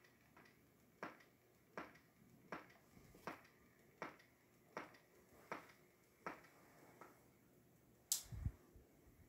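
Faint, evenly spaced ticking clicks, about one every three-quarters of a second, nine in a row; about 8 seconds in comes a louder sharp click followed by a few low thumps.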